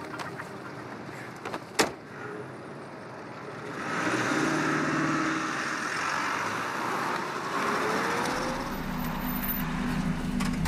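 Vehicle sounds from a film soundtrack: a sharp knock about two seconds in, then vehicle noise swells from about four seconds, with a rising whine and a steady low engine drone near the end.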